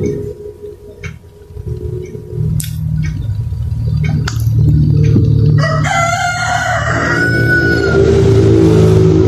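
A rooster crowing once, a single crow about a second long a little past the middle.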